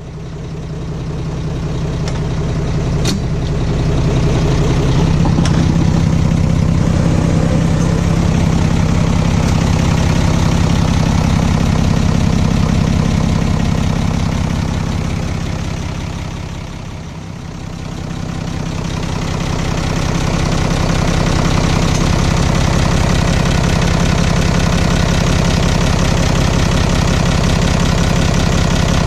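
Nissan Diesel FE6 inline-six diesel engine of a UD Trucks Condor idling steadily, heard close up in the open engine bay, with the usual diesel clatter. Its loudness dips briefly a little past the middle and comes back.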